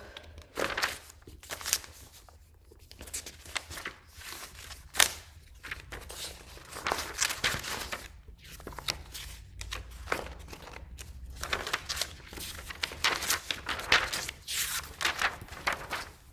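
Irregular rustling, shuffling and light knocks from objects being handled and moved about, with a few sharper taps, the clearest about five seconds in.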